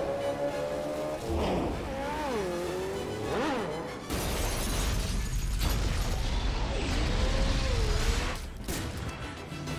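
Action-film soundtrack of music and wavering tyre squeals, then about four seconds in a sudden crash and a long, loud low explosion rumble that dies down near the end.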